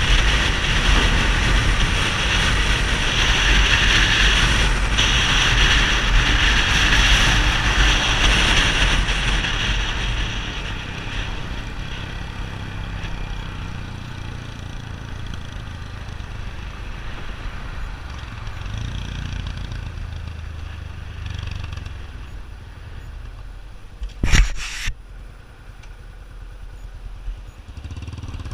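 Yamaha XTZ 250 Ténéré's single-cylinder four-stroke engine running through a Roncar 2WAY aftermarket exhaust. It is louder with a strong hiss for roughly the first ten seconds, then settles to a quieter, steady low rumble. A single sharp knock comes a few seconds before the end.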